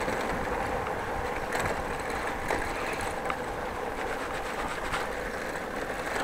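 A bicycle rolling over a brick-paved street: a steady rumble of tyres on the pavers, with a few light clicks and rattles from the bike.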